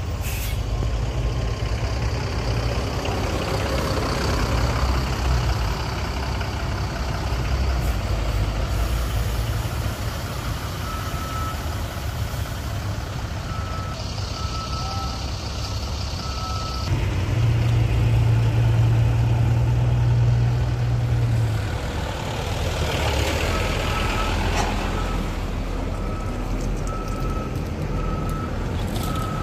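Diesel truck engines running on a steep hill road, one growing louder for a few seconds past the middle. A truck's reversing alarm beeps steadily about once a second in two spells, the second near the end.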